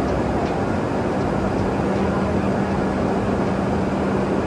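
Steady mechanical rumble of an underground Shinkansen platform, with a low steady hum held throughout and a few faint clicks.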